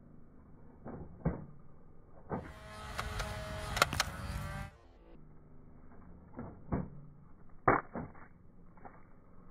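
Nerf Ultra One blaster firing foam darts: about two seconds of whirring flywheel motor with two sharp snaps close together near the middle, framed by several dull, muffled knocks of darts striking the target.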